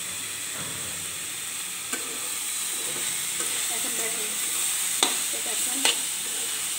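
Leafy greens and potatoes sizzling steadily in a hot karahi, stirred with a metal spatula that scrapes against the pan. Sharp knocks of the spatula on the pan about two, five and six seconds in.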